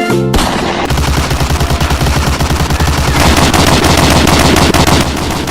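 Rapid, continuous machine-gun fire sound, a fast even rattle of shots. Music stops just before it starts, a fraction of a second in.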